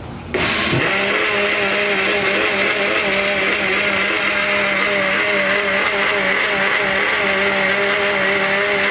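Countertop blender switched on about a third of a second in, spinning up quickly and then running steadily, pulping soaked shredded junk mail in water into paper pulp.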